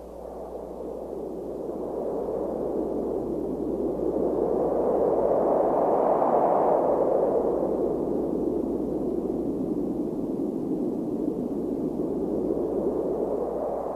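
A long rushing whoosh of noise, like wind, that swells to its loudest about six seconds in and then eases back to a steady rush.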